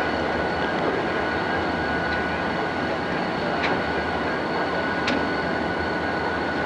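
Several diesel freight locomotives running as they pass close by at low speed, a steady dense engine noise, with two brief sharp clicks about a second and a half apart near the middle.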